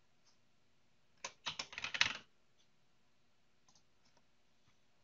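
Computer keyboard typing: a quick run of about ten keystrokes about a second in, lasting roughly a second, followed by a few faint, scattered clicks.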